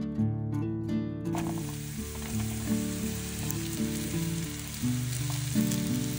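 Sliced button mushrooms sizzling as they fry in hot vegetable oil in a frying pan, the hiss starting about a second in, with a spatula stirring them near the end. Acoustic guitar music plays underneath.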